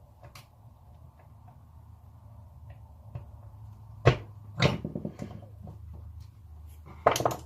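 Hand tools clicking and prying against a small seized sander bearing while its seal is worked open: scattered light clicks, two sharp metallic clicks around the middle with a brief rattle, and a cluster of clicks near the end, over a steady low hum.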